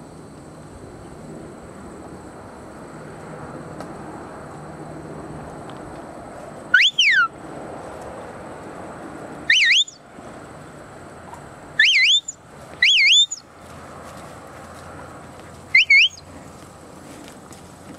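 A handler's herding whistle commands to a working Border Collie: five short, loud whistles, each a quick rising or rise-and-fall glide, spaced a couple of seconds apart, over steady outdoor hiss.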